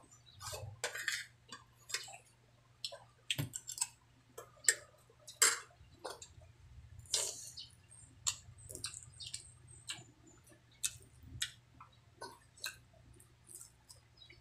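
A person eating with the hands, close to the microphone: irregular chewing, lip smacks and wet mouth clicks, over a faint steady low hum.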